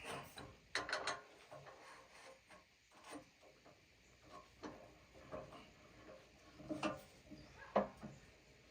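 Scattered light knocks and scrapes, a handful spread over several seconds, with no saw or engine running.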